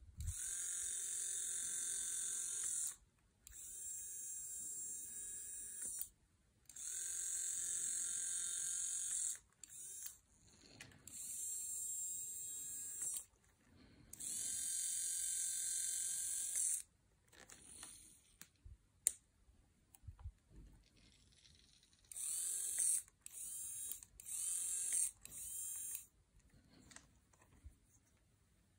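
Small electric motor of a Beaulieu 4008 ZM4 Super 8 camera whirring in repeated runs of about two to three seconds, each starting and stopping sharply. Around the middle come a few scattered clicks, then shorter, choppier runs of the motor.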